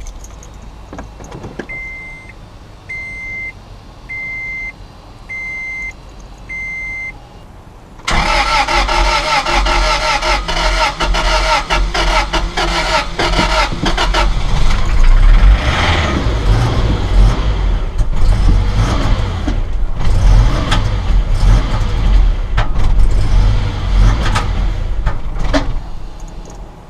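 Five evenly spaced dashboard warning chimes, then the truck's starter cranks the engine continuously for about eighteen seconds without it catching: a no-start the owner is chasing to a crankshaft position sensor fault (code P0335).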